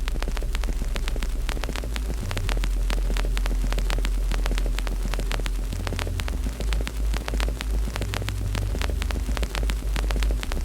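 Wood fire crackling with rapid, irregular pops, over a loud low hum that changes pitch in steps every few seconds and throbs unevenly in the second half.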